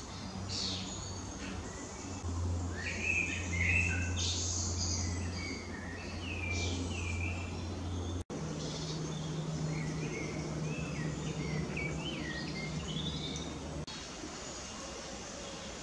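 Woodland birds singing, many short chirping and warbling phrases overlapping, over a steady low hum.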